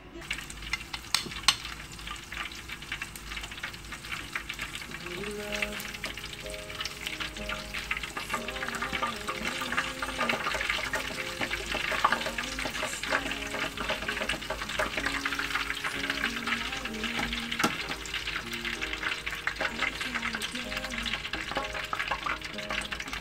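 Shrimp-and-pork balls deep-frying in hot oil in an electric deep fryer: a steady crackling sizzle with many fine pops, a few louder pops in the first two seconds.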